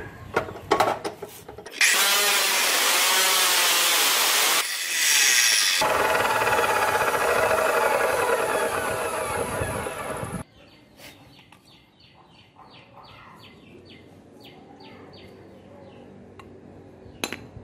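Abrasive chop saw cutting a steel car suspension control arm: a few knocks of the metal part being set against the saw, then a loud, continuous grinding cut for about eight seconds that cuts off suddenly.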